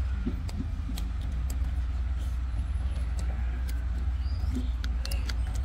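Eating sounds: hands squishing curried rice and goat meat on a steel plate, with chewing and scattered short clicks and smacks, over a steady low rumble.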